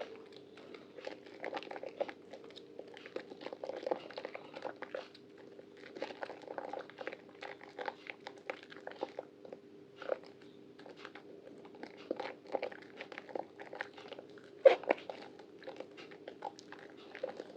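Soaked, softened white bar soap being squeezed and worked by hand, making irregular wet crackling and squishing, with one sharper crack near the end. A faint steady hum lies underneath.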